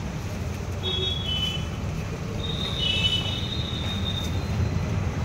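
Steady low rumble of road traffic, with a brief high-pitched squeal about a second in and a longer one around three seconds in.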